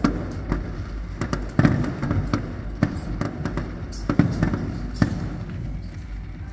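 Fireworks display: aerial shells bursting in an irregular series of loud bangs, roughly one every second or so, with smaller crackles and pops between them.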